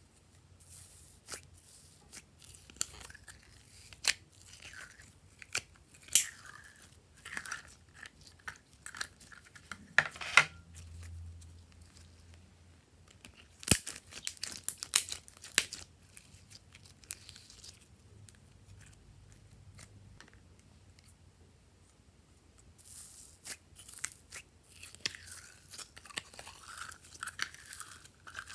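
Glitter slime being pulled and peeled by hand out of plastic containers: irregular sticky clicks, pops and crackles. They thin out for a few seconds after the middle, then pick up again near the end.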